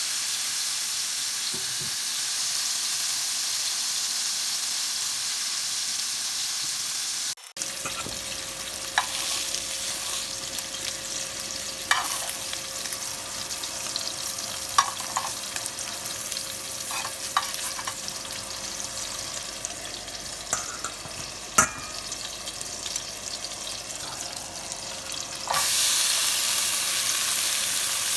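Food sizzling in hot oil in a pan while being stirred, with scattered clicks and scrapes of a spoon against the pan. The sizzle changes abruptly in level about seven seconds in and again near the end.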